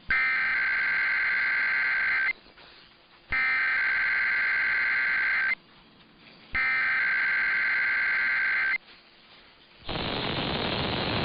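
Emergency Alert System SAME header: three bursts of digital data tones, each about two seconds long and a second apart, a rapid buzzing warble between two high pitches. This header opens an EAS Required Weekly Test. At about ten seconds a steady hiss starts.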